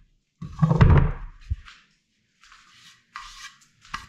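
A wooden stair tread being handled and slid against the wooden stair frame: one heavier scrape with a thud about half a second in, then several short, lighter rubbing scrapes of wood on wood.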